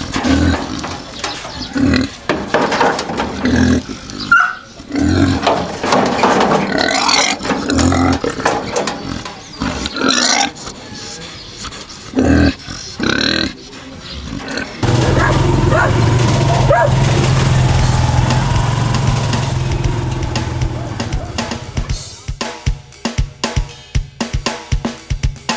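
A domestic pig squealing and grunting in loud, irregular bursts. About halfway through, the sound cuts abruptly to steady music, which picks up a regular beat near the end.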